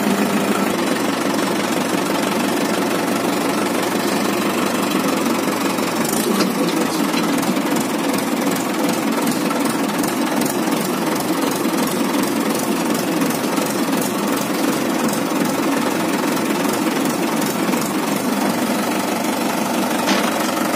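Tractor's diesel engine running steadily while the tractor drives along in gear, heard from the driver's seat: an even, fast clatter with no change in speed.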